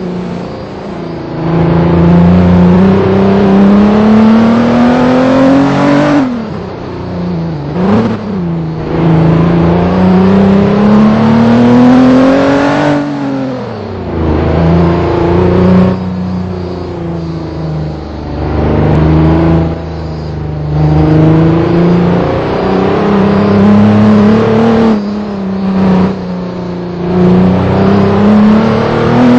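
A vehicle engine pulling under load off-road. Its pitch climbs steadily, then drops sharply, over and over throughout.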